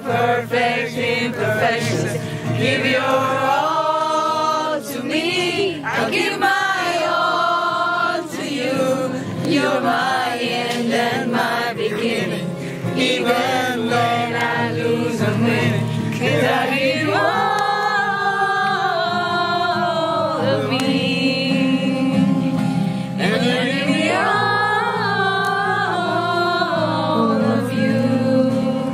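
A group of people singing a song together, several voices at once, with a steady low accompaniment underneath.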